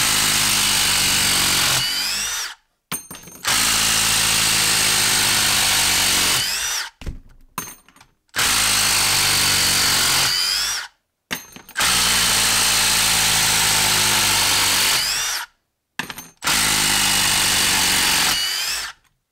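Milwaukee M18 Fuel 1/4-inch hex impact driver hammering lag screws out of a log, five runs in a row with short pauses between. A rising whine comes near the end of each run.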